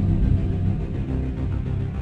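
Gymnastics floor-exercise music playing, with a strong low bass line.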